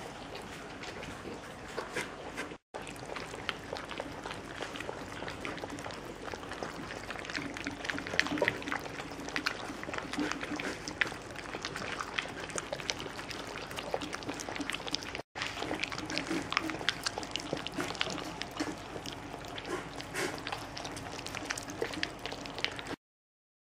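Bernese mountain dog puppies lapping and slurping porridge from a stainless steel feeding dish: a dense run of quick, wet licks and clicks. Briefly at the start an adult dog licks a bowl clean. The sound cuts off suddenly near the end.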